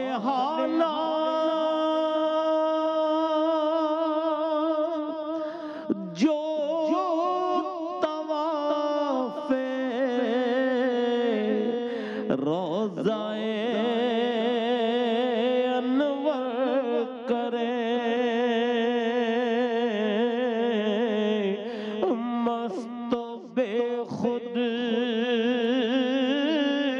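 A man singing a naat, drawing out long held notes on a single voice with a wide, wavering vibrato and sliding between pitches.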